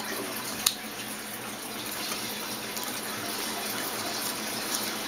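Steady background hiss, with one sharp small click about a second in and a few faint ticks later, from a screwdriver working screws in a security camera's plastic lens housing.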